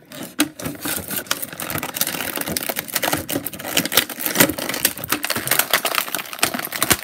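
Clear plastic packaging crinkling and crackling as an action figure is worked loose from it by hand: a dense, irregular run of crackles, softer at first and busier from about a second in.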